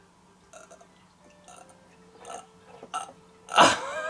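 Faint clicks and light clinks of a glass port bottle against wine glasses, with a few brief ringing tones, then one short loud vocal sound from a man about three and a half seconds in.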